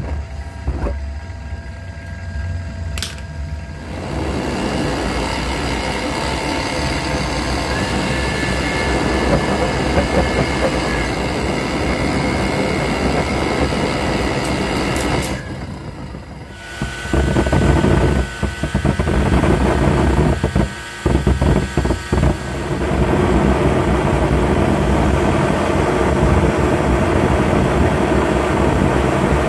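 Homemade electric jet engine running: an electric motor spins a centrifugal compressor that blows air through a burning combustion chamber, giving a loud, steady rush of air and flame with a whine from the motor. A click about three seconds in, after which the noise fills out; it stops briefly around the middle, then restarts, breaking up a few times before settling into a steady run.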